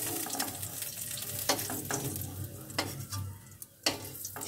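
Hot oil sizzling in a metal kadai while a perforated spoon scoops out fried drumstick stalks, with several sharp knocks of the spoon on metal. The sizzle dies down near the end.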